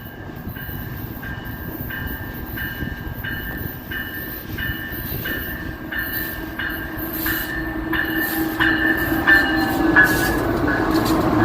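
Amtrak Coast Starlight passenger train's bi-level cars rolling past, the rumble growing louder. A ringing tone repeats about one and a half times a second throughout.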